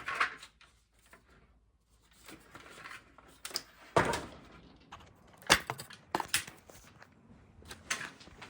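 Handling noise: objects being moved and set down on a hard surface, with a few sharp knocks and light clinks, the loudest about halfway through.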